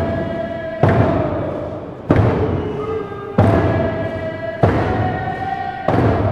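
Traditional Tlingit song: a drum struck in a slow, even beat, about one stroke every second and a quarter, five strokes in all, each ringing away, under voices singing long held notes that step between a few pitches.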